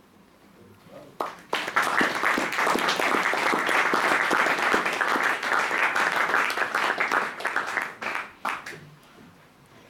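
Audience applauding: many hands clapping, starting about a second in and dying away near the end.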